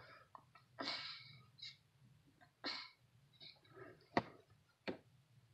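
Quiet fumbling with a seatbelt by a toddler: two short noisy bursts in the first three seconds, then two sharp clicks under a second apart.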